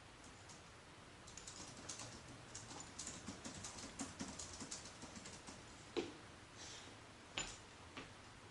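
Faint typing on a computer keyboard: a run of quick, light keystrokes, then a few louder single clicks near the end.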